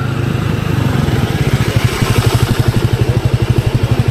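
A small motorbike engine running with a fast, even beat, louder from about a second and a half in.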